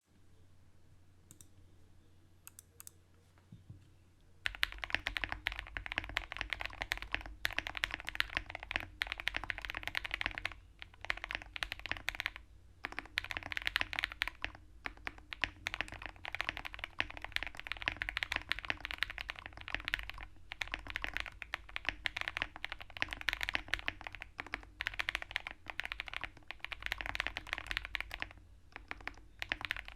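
Typing on a QK65 mechanical keyboard with Krytox-lubed KTT Kang White linear switches and full foam plus silicone dampening. A few faint clicks come first, then a fast, dense run of keystrokes starts about four seconds in and goes on with a few brief pauses.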